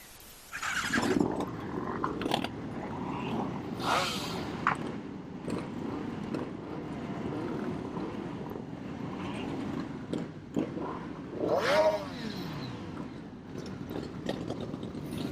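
Naked sports motorcycle riding at speed, its engine running under heavy wind noise on the rider's microphone. About twelve seconds in the engine note rises briefly and then falls away.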